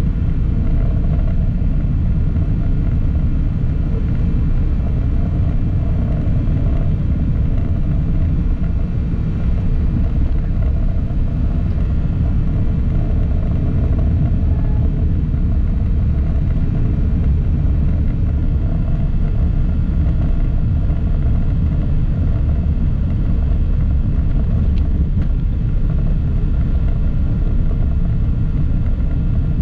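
Steady low rumble of a vehicle travelling along a city road: engine and road noise that holds even, with no sudden events.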